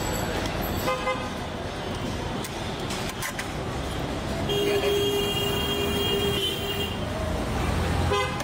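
Busy street traffic noise, with a vehicle horn held for about two and a half seconds in the middle and a low engine rumble near the end.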